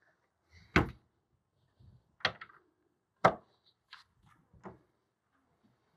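Stainless flush latch of a fibreglass deck locker hatch clicking as it is pressed and popped up, with a few sharp knocks as the hatch lid is handled. The loudest knocks come about a second in and just past three seconds in.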